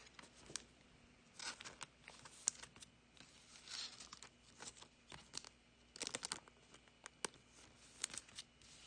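Faint crinkling of clear plastic card sleeves and soft clicks of trading cards being handled, in short scattered bursts.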